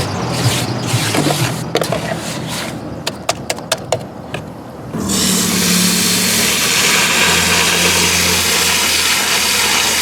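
A tool scraping and rubbing through wet concrete mix, with a quick run of sharp clicks, then a steady rushing noise from about halfway in.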